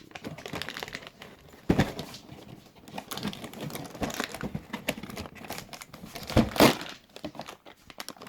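Crinkling and tearing of packaging as a dog advent calendar is opened for its treat. There are two louder rips, one about two seconds in and one near the end.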